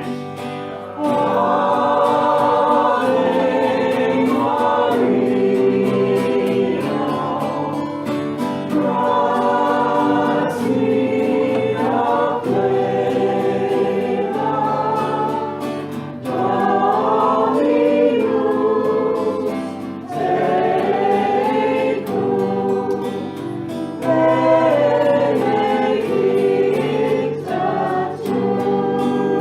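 Choir singing a hymn with instrumental accompaniment, in phrases of a few seconds with short breaks between them.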